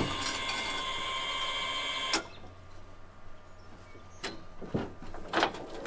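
Solectrac electric tractor moving off: a steady high whine from its electric drive, the sound of the bearings, cutting off with a click about two seconds in. A few soft clicks follow.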